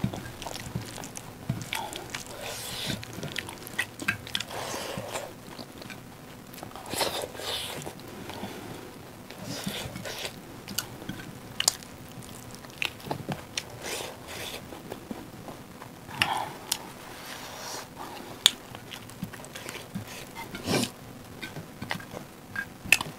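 Close-miked eating sounds of rice with dal and chicken gravy eaten by hand: wet chewing and lip smacks, with irregular sharp clicks and a few louder smacks in the second half.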